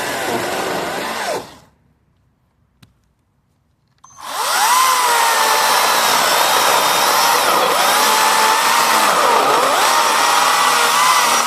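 Greenworks 60V 16-inch battery chainsaw's electric motor and chain whining, winding down to a stop about a second and a half in. After a couple of seconds of near silence with a single click, it starts up again and runs, its pitch dipping a few times.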